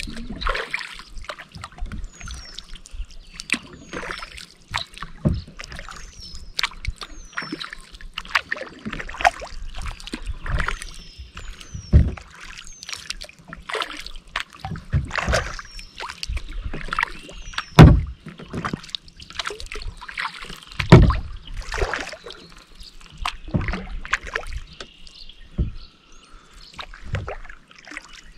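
Kayak paddle strokes in calm water: blades dipping, splashing and dripping in an irregular rhythm, with a few heavier low thumps against the hull, the loudest about two-thirds of the way in.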